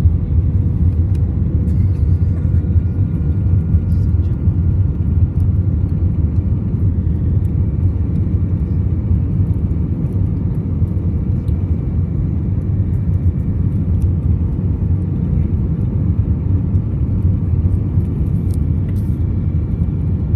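Steady cabin noise inside an Airbus A319 on approach with flaps extended: a deep rumble of airflow and the jet engines, with a few faint steady whining tones above it.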